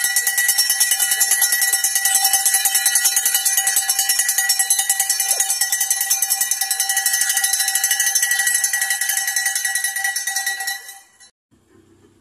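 A metal bell rung rapidly and continuously, a street vendor's call bell. The ringing stops abruptly about eleven seconds in.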